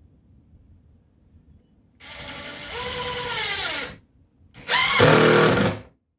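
Power drill driving screws into subfloor, in two runs: the first lasts about two seconds and its motor pitch drops as it finishes, and the second is shorter and louder, coming about a second later.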